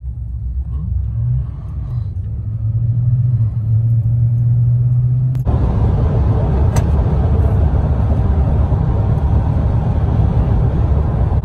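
Car interior noise while riding: at first a low steady hum, then, just past halfway, an abrupt change to louder, rushing tyre and wind noise from driving on the freeway.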